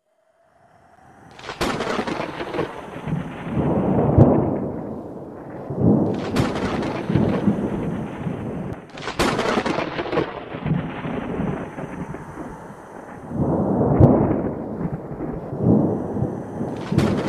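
Thunder: several sudden cracks, each followed by a long, rolling rumble that fades slowly.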